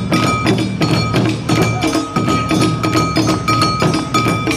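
Live Awa Odori festival music: taiko drums and a small hand gong striking a brisk, steady beat, with a high flute note held over it that breaks off and comes back.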